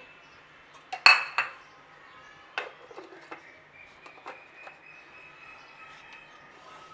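Onion chunks, green chillies and garlic tipped from a glass plate into the plastic bowl of an electric mini chopper, landing in a loud clatter about a second in. A few lighter knocks and clicks follow as the plate is set down and the lid and motor unit are fitted on.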